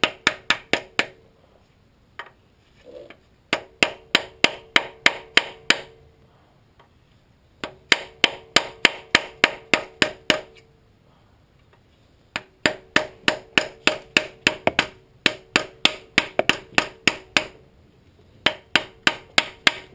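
A hammer striking the handle of an oil pan seal cutter in quick, even runs of about four to five blows a second, with short pauses between runs. Each blow rings briefly. The blows drive the blade through the sealant to separate the oil pan from the engine block of a VQ35DE V6.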